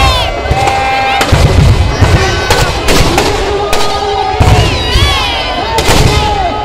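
Firecrackers packed into a burning Ravan effigy going off in a string of sharp bangs at irregular intervals, over a crowd shouting and cheering.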